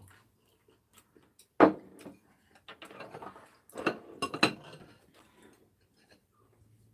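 Tableware knocking and clinking on a wooden dining table: a ceramic mug, plates, a knife and a spoon. One sharp knock about a second and a half in is the loudest, followed by light clatter and a cluster of clinks near the four-second mark.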